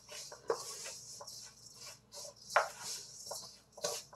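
A dry cake mix of grated coconut, flour and sugar being stirred and scraped around a stainless steel mixing bowl, in irregular scratchy strokes with a few sharper knocks, the loudest about two and a half seconds in.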